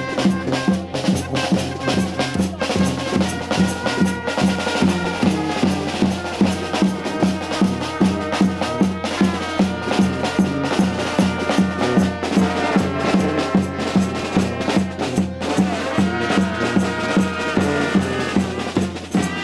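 Music with a steady, driving beat of about two to three pulses a second and sustained melody notes over it.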